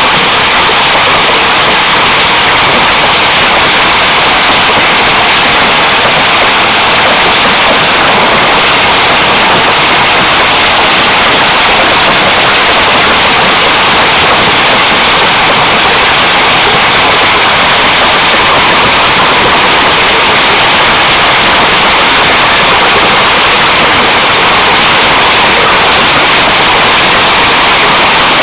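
Hail storm: a loud, steady, dense rush of hailstones and rain striking hard surfaces.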